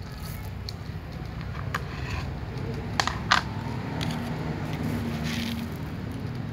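Cats crunching dry kibble, with two sharp clicks close together about three seconds in, over a steady low background rumble.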